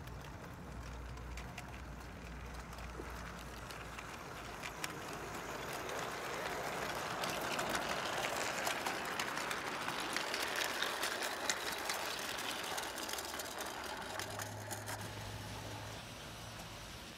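O gauge model freight train of coal wagons running past on garden track, its wheels clattering with many quick clicks over the rails. It grows louder towards the middle, as the wagons pass close, and fades again near the end.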